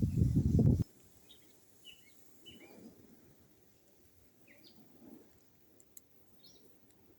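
A loud low rumble that cuts off sharply about a second in, then birds calling with short, scattered chirps, several seconds apart.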